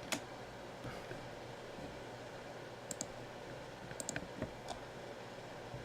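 Scattered light clicks of a computer mouse and keyboard: about eight separate clicks, a few in quick pairs, with a cluster about four seconds in.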